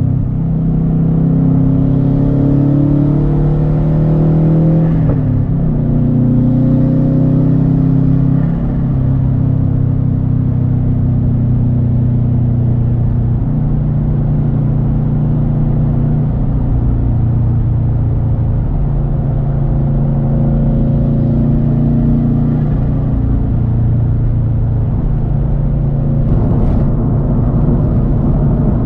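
2013 Subaru WRX STI's turbocharged 2.5-litre flat-four running through a Tomei Expreme Ti turbo-back exhaust while driving. The engine climbs in pitch under acceleration, drops at a gear change about five seconds in, and pulls again before settling into a steadier cruise. There is a brief sharp sound near the end.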